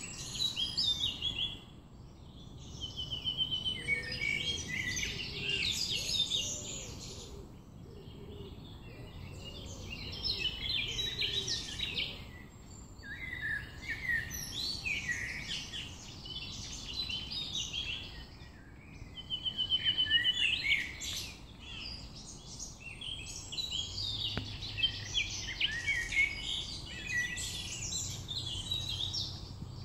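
Several songbirds singing at once, overlapping bursts of song with quick trills, over a faint low rumble; a low steady hum joins near the end.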